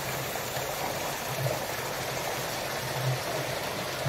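Rainwater running down a downspout made of clear PET plastic bottles joined end to end: a steady splashing, rushing flow.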